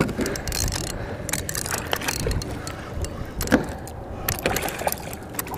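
Wind buffeting the camera microphone in a steady low rumble, with choppy water lapping around a kayak and scattered small clicks and rattles of fishing gear.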